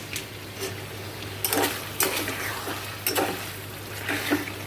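A spoon scraping and clinking against a cooking pot as beef curry is stirred, in about five short strokes, over a steady low hum.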